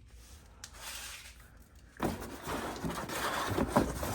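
Metal tools and parts being handled and sorted from a kit: rattling, scraping and small clinks that start about halfway through after a quiet first half.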